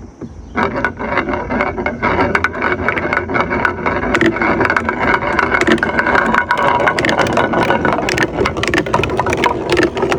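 Many marbles rolling and clattering down a HABA marble run slope, a continuous rolling rumble crowded with quick clicks as they knock together and against the track, starting about half a second in.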